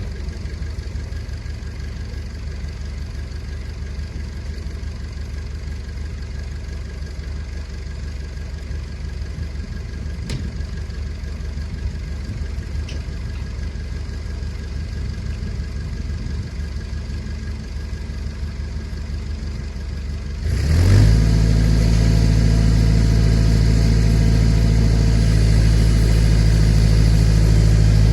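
Massey Ferguson BX 50 backhoe's engine running steadily at low speed, then throttled up about twenty seconds in and holding a louder, steady, higher-revving note.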